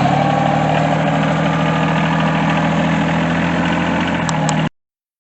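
RK24 subcompact tractor engine running steadily, cutting off abruptly near the end.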